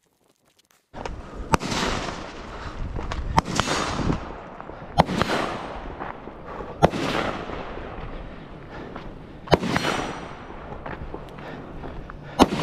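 A string of six gunshots, roughly one every two seconds, each followed by a long rolling echo, over a steady background rush; the sound comes in abruptly about a second in.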